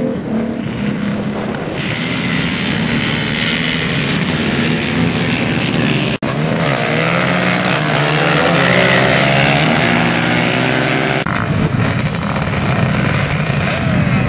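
Several sport ATV engines running and revving together, their pitch rising and falling. The sound breaks off for an instant about six seconds in.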